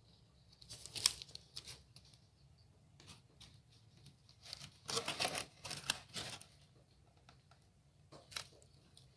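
Foam-board maze walls scraping and rubbing against each other as they are pushed and fitted into place by hand, in short rough scratches: a brief one about a second in, a longer stretch around five to six seconds in, and a short one near the end.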